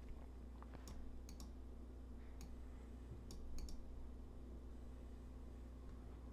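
Faint computer mouse clicks, several scattered ticks with some in quick pairs, over a low steady hum.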